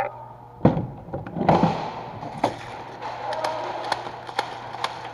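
Two thumps about a second apart, then scattered sharp clicks of airsoft guns firing.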